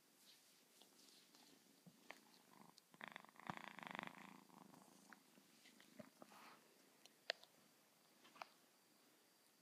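A kitten purring close to the microphone for a second or two, about three seconds in. Otherwise quiet, with a few faint taps and one sharper click about seven seconds in.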